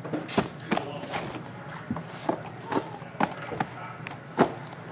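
Sealed, shrink-wrapped cardboard trading-card boxes being set down and stacked on a table: about ten light, irregular knocks and taps.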